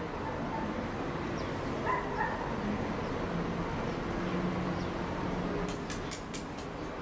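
A dog barking briefly about two seconds in, over the steady hum of city road traffic. A quick run of sharp clicks comes near the end.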